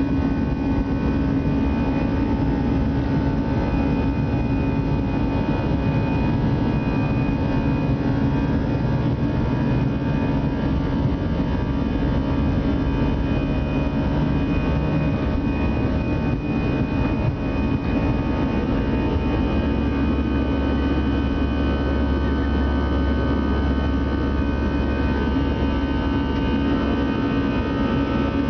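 An Airbus A319-100's jet engines at takeoff power, heard from inside the cabin: a steady roar with several held whining tones through the takeoff roll and into the climb. The deepest rumble grows stronger about two-thirds of the way through.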